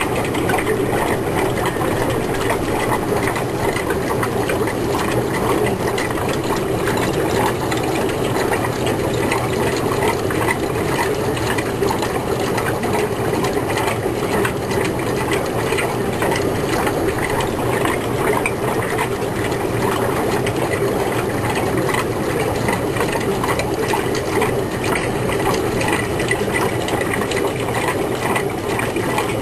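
A small machine running steadily, with a fine, fast rattle throughout.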